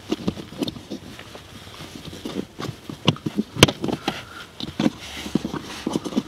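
Irregular plastic clicks and knocks with some rustling as a hand fits a new cabin air filter and the housing's plastic cover of a 2009 Volkswagen Tiguan, with one sharp knock about three and a half seconds in.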